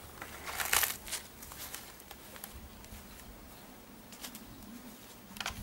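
A few brief, soft rustles: one cluster about half a second to a second in, and single ones near 4 s and near the end, over a quiet outdoor background.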